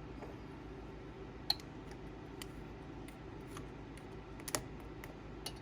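A handful of light, sharp clicks and taps, irregularly spaced, the loudest about one and a half seconds in, over a steady low hum.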